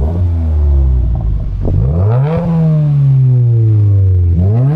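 Car engine being revved while parked: it holds a low, steady speed, rises sharply about two seconds in, falls slowly back, then is blipped up again near the end.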